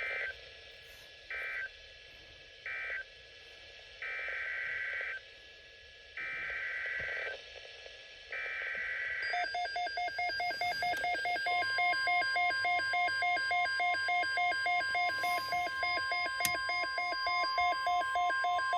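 Emergency Alert System SAME data tones off NOAA Weather Radio: three short warbling two-tone bursts close out the previous warning, then three longer bursts of about a second each carry the header of the next alert. Rapid beeping, about four a second, follows. About two seconds after the beeping starts, the steady weather radio warning alarm tone begins, signalling that a new alert is coming.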